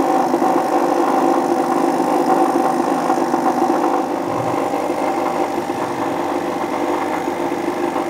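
Lelit Grace PL81T espresso machine's vibratory pump humming steadily under load as it pushes hot water through the coffee puck during a shot extraction.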